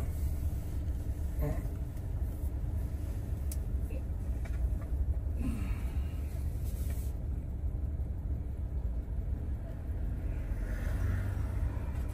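Steady low rumble of a car's engine and road noise, heard from inside the cabin as it moves slowly in city traffic.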